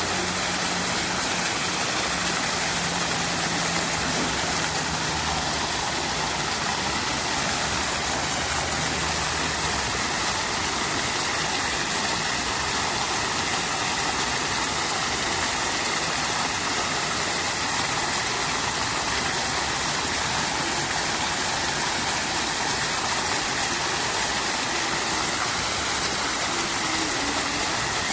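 Water from a fountain splashing and pouring in a steady, unbroken rush. A faint low hum lies under it for the first ten seconds or so, then fades.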